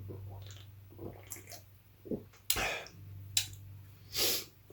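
A person drinking beer from a can: liquid sloshing and swallowing, with a couple of short, louder breathy noises in the second half.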